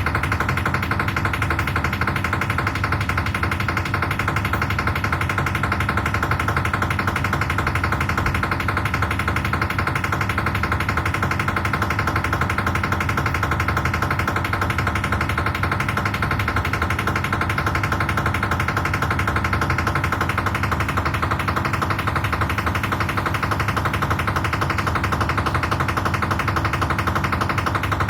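IFB 10 kg Aqua washing machine running with a fast, steady mechanical rattle, an abnormal noise from the machine.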